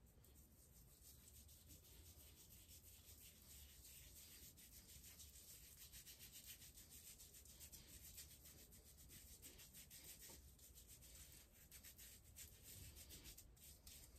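Fingers rubbing shaving lather into a full beard: faint, quick rubbing strokes.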